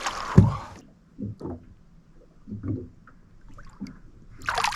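Water splashing as a landed barramundi is put back over the side of a boat, with a loud knock about half a second in, a few small knocks and splashes after it, and another splash near the end.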